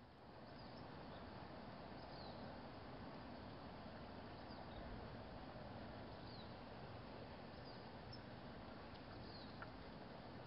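Faint steady background hiss with short, high, falling chirps every second or two, and one small click near the end.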